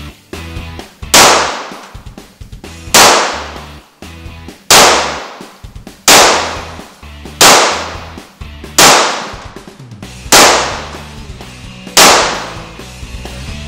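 Eight handgun shots fired one at a time, about one every one and a half seconds, each with a short ringing tail off the concrete walls of an indoor range, over background music.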